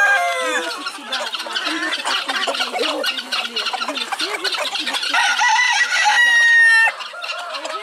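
A flock of chickens clucking and squawking all together, with a rooster crowing twice: the end of one crow trails off in the first second, and a second long crow starts about five seconds in and cuts off sharply near the end.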